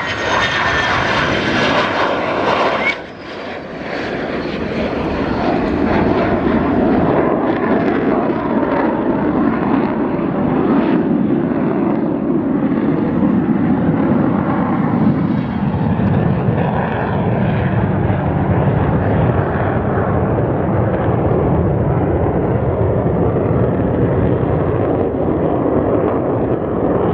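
Romanian F-16 Fighting Falcon's F100 turbofan jet engine at high power as the fighter flies a display pass: loud, steady jet noise. A high whine falls in pitch in the first second, and the level drops briefly about three seconds in.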